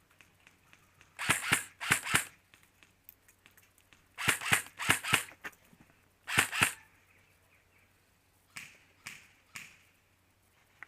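Airsoft guns firing: several groups of sharp shots, then three fainter shots about half a second apart near the end.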